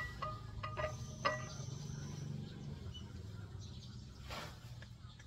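Metal utensil clinking against a dish a few times in the first second and a half, each strike ringing briefly, over a low steady hum.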